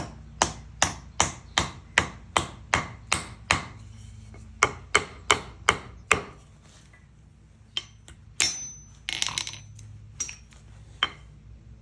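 A hammer driving a wedge into the sawn slit in the end of a wooden handle to lock a weight on. It strikes about ten quick, even blows, pauses, strikes about five more, then makes a few lighter knocks and a brief rattle near the end.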